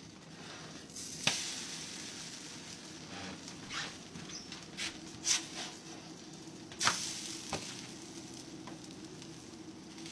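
Egg-in-a-hole toast frying on a flat griddle, a steady sizzle. A spatula scrapes and taps against the griddle as the slices are flipped, sharpest about a second in and again just before seven seconds.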